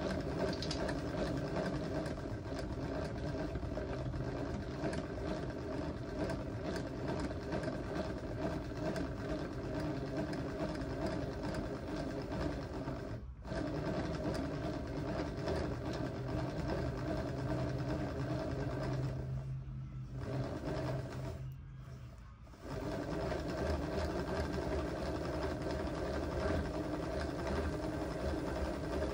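A small electric machine motor running steadily, with a brief cut-out about halfway through and two short lulls about two-thirds of the way through.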